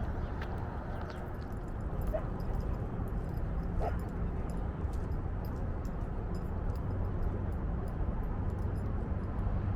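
A dog giving two short, high whimpers about two and four seconds in, over a steady low rumble of outdoor background noise.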